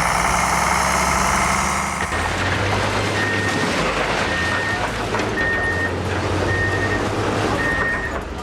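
Heavy machinery running loudly. About two seconds in the sound changes to a diesel engine running steadily under a reversing alarm that beeps about once a second, five times.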